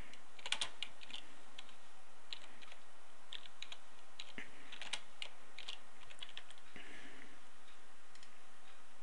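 Computer keyboard keys clicking as a phrase is typed: irregular keystrokes that thin out after about seven seconds.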